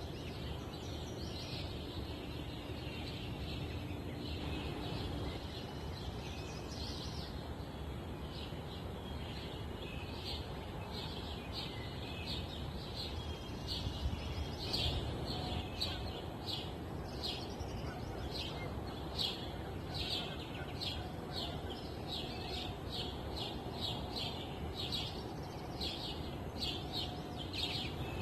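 Small birds chirping in short high notes over a steady low rush of wind; from about halfway the chirps come quickly, two or three a second.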